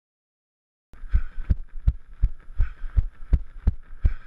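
A runner's footfalls on grass, heard as dull, evenly spaced thumps through a body-worn camera, about three a second. They start about a second in, after dead silence.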